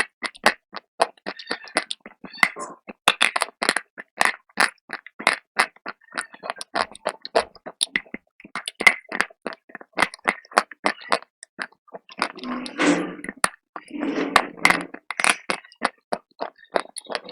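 Close-up crunching as brittle slate wafer is bitten and chewed, with many sharp cracks in quick succession. Two longer, softer, gritty stretches come in the last third.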